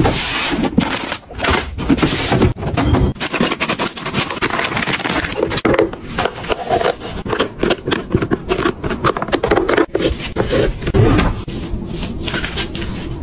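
White plastic storage trays and organiser boxes being handled and set into a drawer: a quick, close run of plastic scrapes, taps and clicks.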